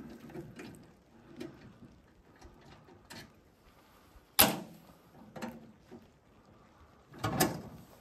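Scattered wooden knocks as firewood is handled and stacked. There is one sharp, loud knock about halfway through and a short cluster of knocks near the end.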